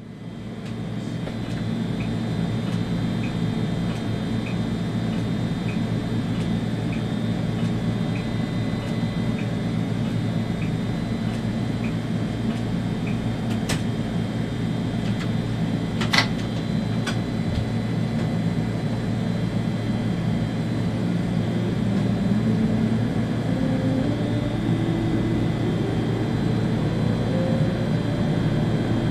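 Cab of an ÖBB Railjet train running: a steady electric hum and running noise, with faint even ticking in the first half and two sharp clicks around the middle. From about three quarters in, a whine rises in pitch as the traction drive winds up.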